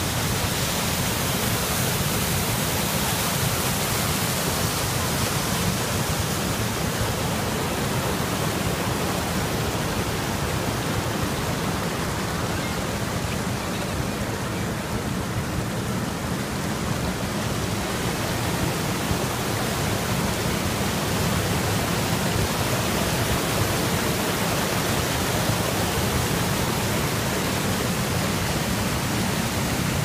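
River water rushing over rock slabs in rapids and small cascades: a steady rushing hiss, slightly duller for a few seconds in the middle.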